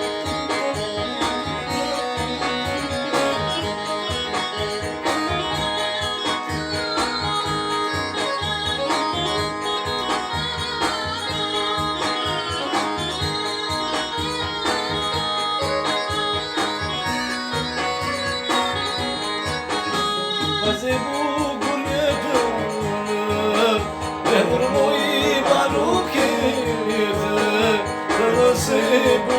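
Music: an instrumental passage led by plucked strings. A singing voice enters about two-thirds of the way through and the music grows a little louder.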